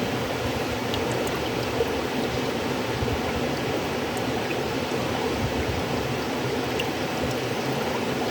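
River water flowing steadily, a continuous rushing with faint small splashes and drips.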